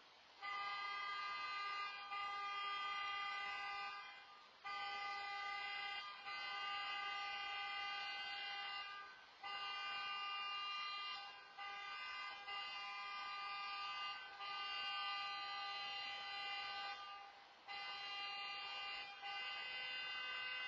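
A car horn sounding a steady, unbroken note, starting about half a second in and cutting out briefly about every two to six seconds before sounding again.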